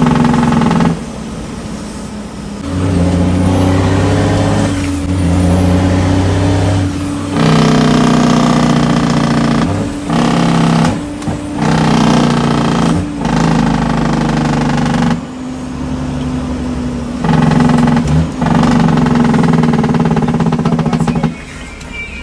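International truck's diesel engine pulling under load, heard from inside the cab. Its note cuts out and drops briefly every two to three seconds as the driver shifts up through the 18-speed manual gearbox.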